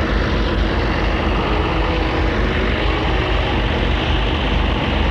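A steady engine running, a continuous drone at an even loudness.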